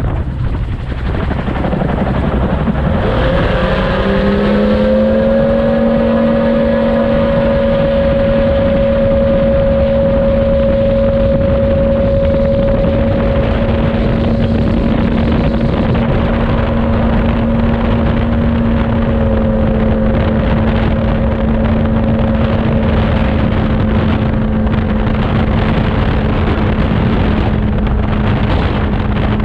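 Open-cockpit gyroplane's engine throttled up for takeoff: its pitch rises about three seconds in and then holds steady at full power, with a heavy rush of air across the open cockpit.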